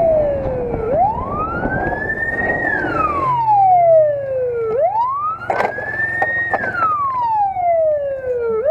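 Police car siren wailing, its pitch sweeping slowly up and down about every four seconds, over a steady low rumble.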